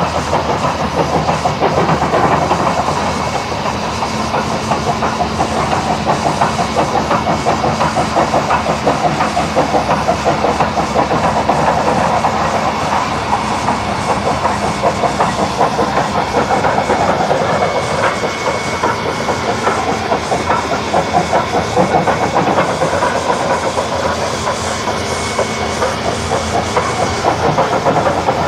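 Steam locomotive Rx207, a South Australian Railways Rx class 4-6-0, working hard up a grade: a continuous run of rapid, even exhaust beats with steam hiss. It is heard through a microphone held out of a car driving alongside, so road and wind noise run underneath.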